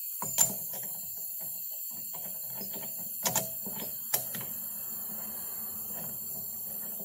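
A few sharp metal clicks and clinks, three of them standing out, as the loosened axle nut is worked out of the rusty rear wheel hub's bore, over a steady low hum.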